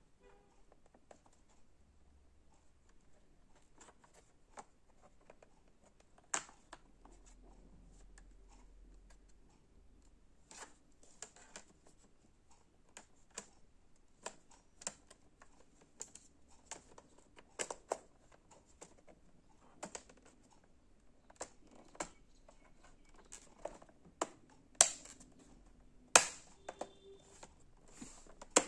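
Irregular sharp clicks and light taps from hands handling computer parts while memory (RAM) modules are fitted, with a handful of louder snapping clicks standing out.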